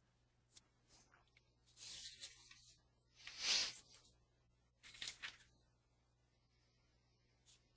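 Three short bursts of rustling noise, the second and loudest about three and a half seconds in, with a few faint clicks between them.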